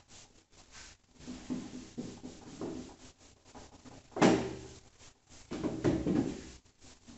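Whiteboard eraser rubbing over a whiteboard in irregular strokes, wiping off marker, with a sharp, louder knock about four seconds in.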